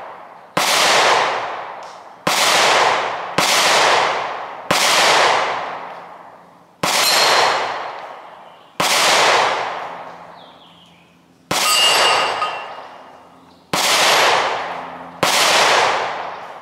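Glock 43X 9mm pistol firing nine shots at an unhurried, irregular pace, about one to two seconds apart, each shot trailing off over a second or so. These are the rest of a ten-round magazine.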